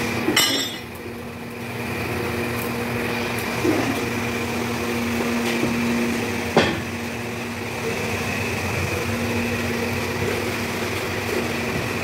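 Steady machine hum with three sharp metal clanks, spaced a few seconds apart, as a foundry ladle of molten iron is worked along iron-weighted sand-mould boxes.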